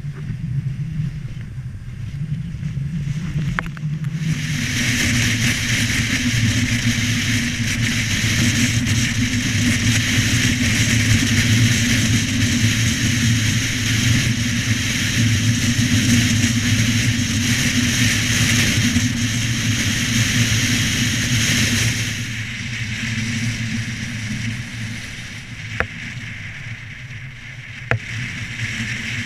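Car driving along a lane, heard from a bonnet-mounted camera: a steady low engine and road hum under a loud rushing noise of wind and tyres. The rushing swells about four seconds in and falls back after about 22 seconds. A couple of sharp clicks come near the end.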